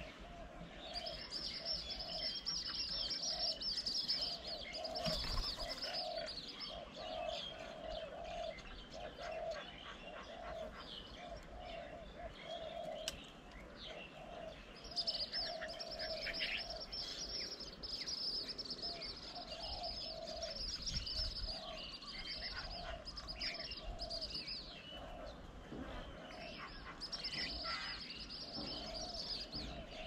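Wild birds calling around a garden bird table: scattered chirps, a low note repeated a little more than once a second, and a high continuous trill that comes and goes in long stretches.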